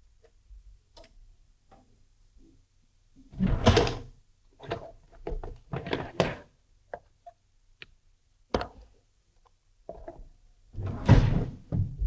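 A series of knocks and clattering handling noises, like a drawer or door being moved, with the loudest about three and a half seconds in and again near the end.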